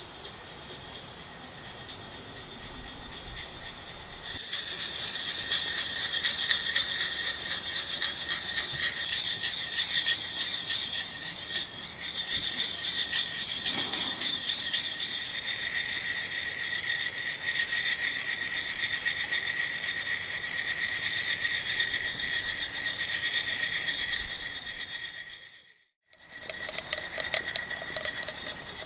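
Porlex hand coffee grinder grinding roasted beans: a continuous crunching rasp that starts about four seconds in, breaks off for a moment near the end and starts again.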